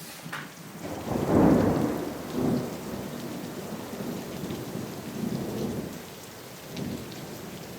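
Thunder rumbling over steady rain, the loudest roll about a second in, followed by smaller rumbles.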